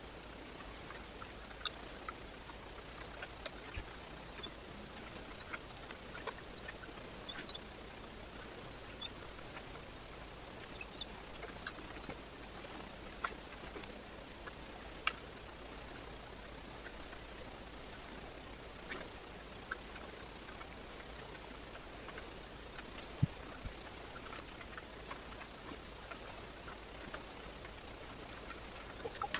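Small birds at a feeder: scattered sharp taps and pecks over a steady hiss, with a few faint high chirps.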